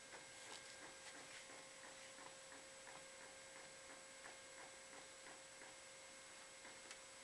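Epson 1390 six-colour inkjet printer printing: faint, rapid ticking of its mechanism as the print head shuttles across the paper, about three clicks a second, over a faint steady hum.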